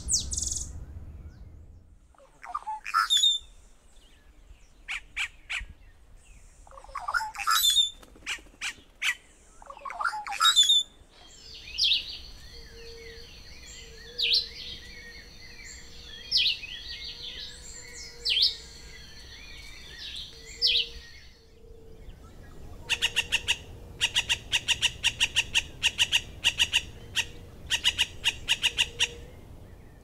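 First, a Black-capped Sparrow sings thin, high, slurred song phrases. Then, from about eleven seconds in, a Chivi Vireo repeats short song phrases about every two seconds over a steady high hum. In the last several seconds come rapid runs of repeated notes, from the White-tailed Jays.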